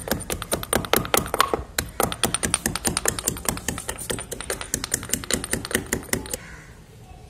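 Stone pestle pounding ginger in a small stone mortar: a fast run of sharp stone-on-stone knocks, about seven a second, that stops about a second before the end.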